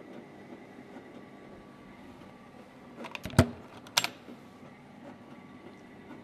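The guard door of a rotary tablet press being opened: a few latch clicks, then a sharp clack about three and a half seconds in and a second one about half a second later, over a steady faint machine hum.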